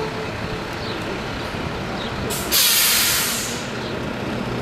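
Steady street traffic noise, with a vehicle's air brakes releasing about two and a half seconds in: a sudden loud hiss that lasts about a second and fades out.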